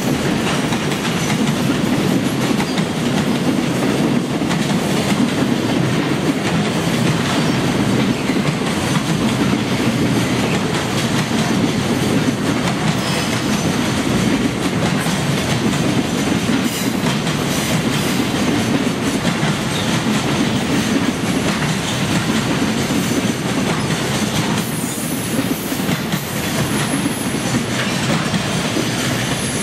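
Freight train container flatcars rolling past at close range: a loud, steady rumble of steel wheels on the rails with clickety-clack over the rail joints. A faint high squeal comes in near the end.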